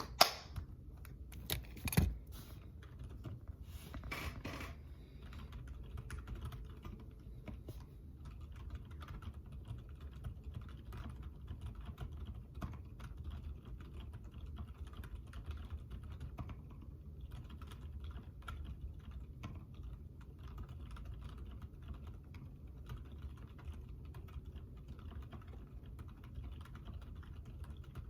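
Typing on a Redragon mechanical keyboard fitted with Outemu silent gray switches. A few louder knocks come in the first five seconds, then fast, continuous keystrokes.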